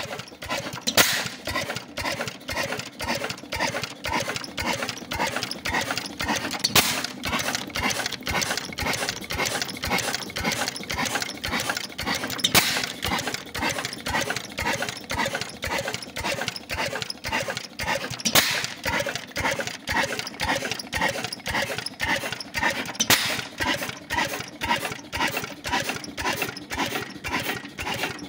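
Clutterbuck 6.5 hp single-cylinder horizontal oil engine running, a steady rhythmic clatter of roughly three beats a second. A louder sharp crack sounds every five to six seconds.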